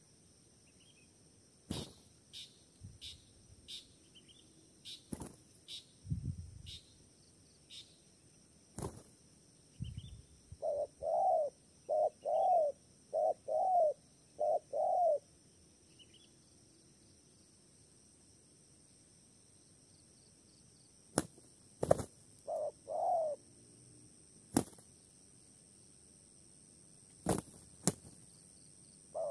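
Spotted doves cooing: a run of short, arching coos, mostly in pairs, about eleven seconds in, and three more about twenty-two seconds in. Sharp clicks are scattered throughout, and a steady high whine runs behind.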